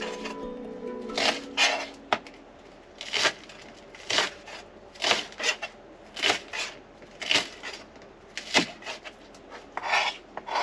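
Repeated short scraping strokes on a wooden surface, about one a second, like a knife working food on a wooden cutting board.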